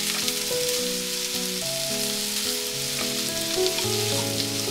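Chicken thigh pieces sizzling and crackling in a frying pan with sliced onions and shimeji mushrooms in butter, with a gentle melody of held notes playing under it.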